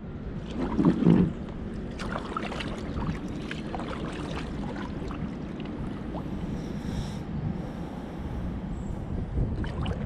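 Kayak paddle strokes dipping and splashing beside an inflatable kayak, with irregular drips and knocks over a steady wash of moving river water; the loudest strike comes about a second in.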